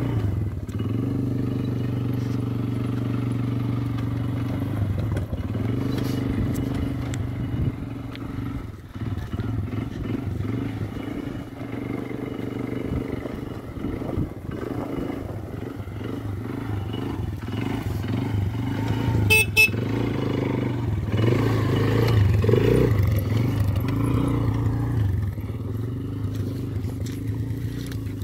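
Small youth quad bike (ATV) engine running as it drives over gravel, its pitch rising and falling with the throttle. A brief sharp clatter about two-thirds of the way in.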